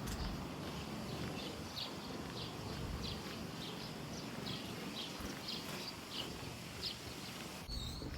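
Footsteps walking at a steady pace, about two steps a second, over a low rush of strong wind buffeting the microphone.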